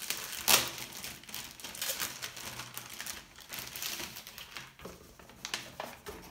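Paper and packaging being handled: irregular rustling and crinkling with scattered light clicks and taps, one sharper click about half a second in.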